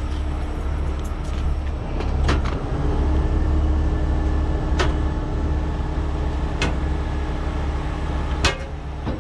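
Vulcan rotator tow truck's diesel engine running under load while its hydraulic underlift extends, with a steady hum that starts about two and a half seconds in. A few sharp clicks sound at intervals of about two seconds.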